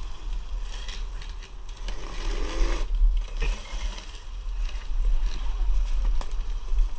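Riding noise of a 2020 Sur-Ron electric dirt bike on a bumpy dirt trail: a steady whir of motor and chain with tyre noise, a few knocks over bumps and a heavy wind rumble on the camera microphone.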